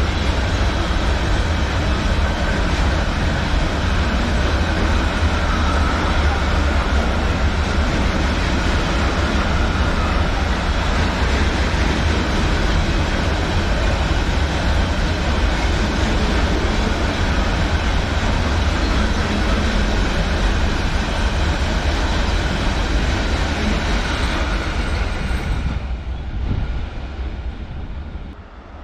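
A train passing close by: a loud, steady rumble of wheels on rail that drops away near the end.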